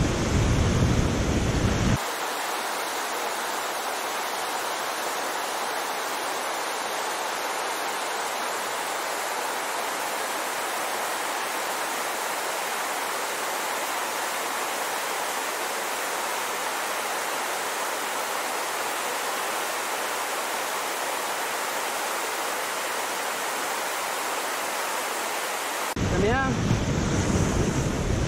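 Whitewater rapid on a steep mountain river: a steady, even rush of water. For about the first two seconds and again near the end the same water is heard close up from the kayak, louder, with deep buffeting on the microphone.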